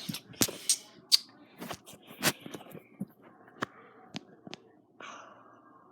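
Sticky slime being squeezed and pulled in the hands, giving a string of sharp, irregular clicks and pops, with a short squishy hiss about five seconds in.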